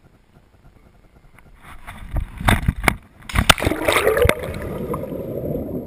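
A body plunging feet-first into a pool off a rock ledge: a burst of sharp splashes and knocks about two and a half seconds in, then muffled bubbling and gurgling as the camera goes under water.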